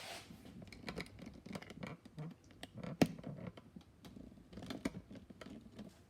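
Tools being handled on a bench while a torque wrench is set up for testing: scattered light clicks, scrapes and knocks, with one sharper knock about three seconds in.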